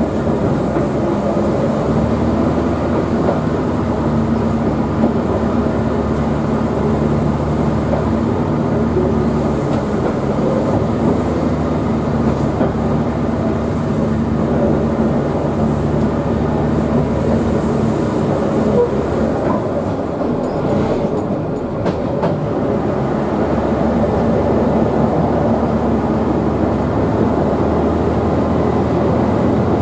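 QR 2000 class diesel rail motor running steadily under load as it climbs a mountain grade, its engine drone and wheel and track noise heard from on board.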